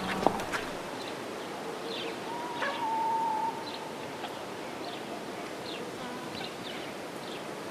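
Forest ambience: small birds calling in short, high, downward chirps over a steady background hiss, with one held whistle-like note lasting about a second, a little over two seconds in. A sharp click sounds just after the start.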